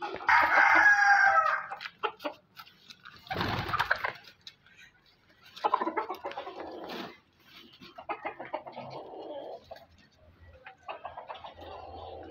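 A rooster crows once at the start, a call about two seconds long and the loudest sound, followed by chickens clucking in several short bouts, with a brief noisy burst between.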